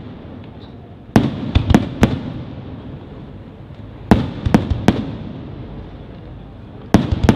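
Aerial fireworks shells bursting in a professional display: three volleys of sharp bangs about three seconds apart, each a loud report followed quickly by two or three more. A rolling echo fills the gaps between volleys.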